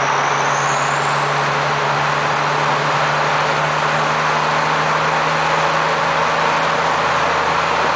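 Dump truck driving, with a steady engine hum under loud, even road noise. A faint high whine rises in pitch over the first couple of seconds.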